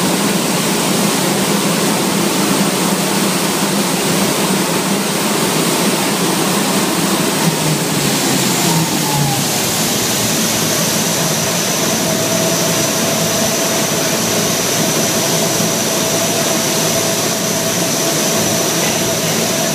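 Lockheed C-130 Hercules's four turboprop engines running, loud and steady inside the cargo hold with the rear ramp open. About halfway through, the pitch of the engines' whine shifts and then holds steady again.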